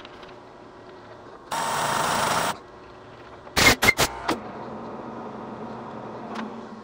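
Compressed-air blow gun blowing chips off a lathe workpiece: one hiss of about a second, then three short quick blasts, followed by a light click.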